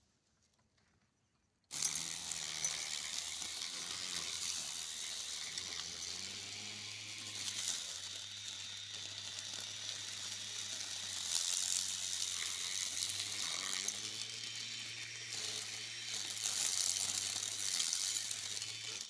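Homemade lawn mower running and cutting grass: a steady low motor hum that shifts a little in pitch, under a loud hissing swish from the spinning blade. It cuts in suddenly after almost two seconds of near silence.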